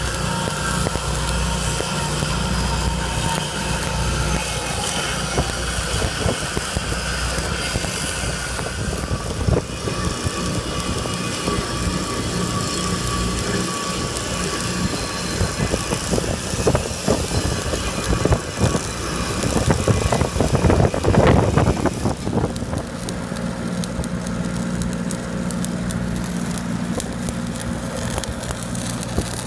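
Stick-welding arc crackling as a rod is run on a steel pipe joint, over the steady running of an engine-driven welding machine. Irregular knocks are heard partway through, and a louder stretch comes near the two-thirds mark.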